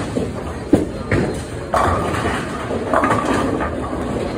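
Bowling alley clatter: a bowling ball rolling down the lane after release and pins crashing, with several sudden knocks and crashes over a steady rumble from balls and pins on neighbouring lanes.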